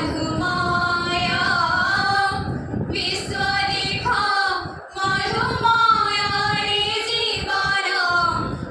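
A group of young women singing a melodic song together into a microphone, with brief pauses between phrases about a third and halfway through.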